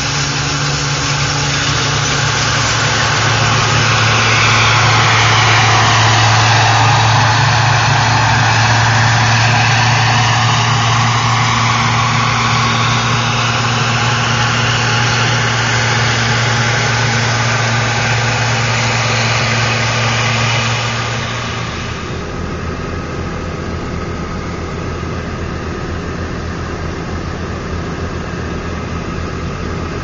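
Gleaner combine harvester running in a wheat field with a steady low engine hum, its machine noise swelling and falling away as it drives past. About two-thirds of the way through it cuts to a quieter, even rushing: the combine's unloading auger pouring grain into a truck.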